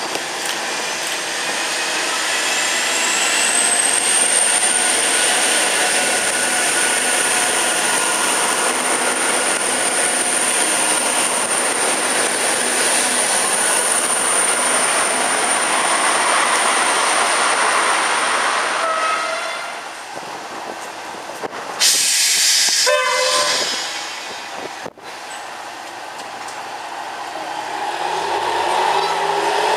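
A V/Line VLocity diesel railcar set running past the platform: a high whine rises over the first few seconds and then holds steady over loud running noise until it fades after about twenty seconds. A short burst of hiss follows, and near the end the Doodlebug diesel-electric rail motor's engine revs up as it gets ready to depart.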